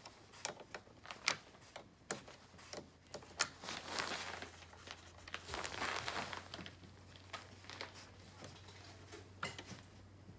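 Irregular light metallic clicks and taps of a wrench working the negative terminal clamp of a car battery, with a stretch of rustling about halfway through as the terminal is handled.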